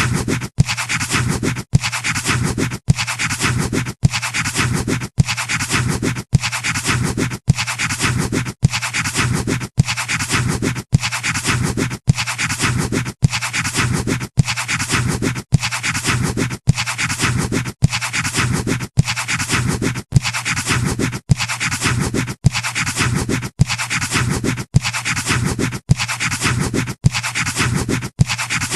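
Pencil scratching on paper, played as a short sound-effect loop: a steady scratchy rasp that breaks off briefly and starts again about every three-quarters of a second.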